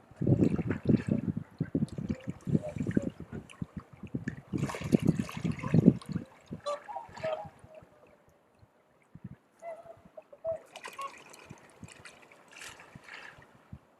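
Wind buffeting the microphone in heavy low rumbles for the first six seconds. After that swans give a few short honking calls, around seven seconds and again near the tenth.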